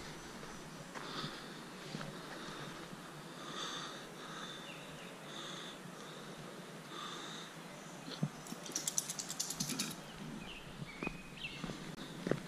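Woodland songbirds singing short phrases every second or two, with a fast rattling trill from about eight to ten seconds in, the loudest sound here. Soft footsteps on the trail sound underneath.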